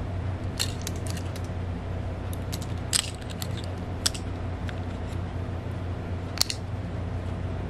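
Sharp clicks and snaps of a waterproof LED video light's plastic housing and latch being handled and fitted, about a dozen irregular clicks, the loudest about three seconds in and another strong one near the end, over a steady low hum.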